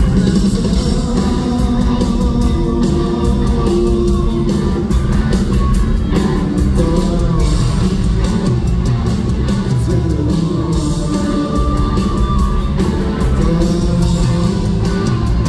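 Live rock band playing loud, with electric guitars and drums.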